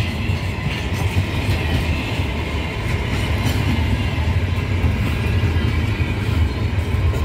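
Container flatcars of a freight train rolling past, a steady low rumble of steel wheels on the rails with faint repeated clicks of wheels over rail joints.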